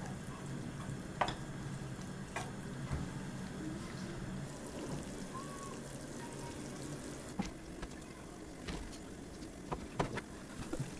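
Kitchen sounds while a nabe hot pot is being made: a low, steady background of cooking noise, broken by a few short, sharp clinks of utensils against the pot or dishes.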